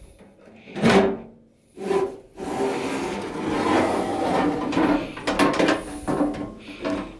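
IBM PC XT's steel top cover being slid forward off the chassis: a couple of knocks as it is taken hold of, then a long scraping rub of metal sliding over metal, with a few clicks along the way.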